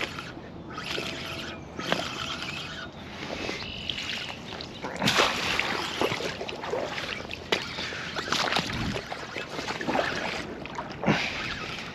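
Hooked carp splashing and sloshing in shallow water as it is played close in, in irregular bursts, the biggest about five seconds in and again near the end.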